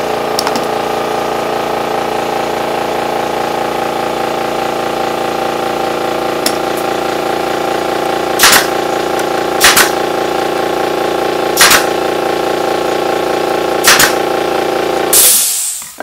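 Brad nailer firing brads into pine, four sharp shots spaced one to two seconds apart in the second half, over a steady machine drone that stops with a short burst of hiss near the end.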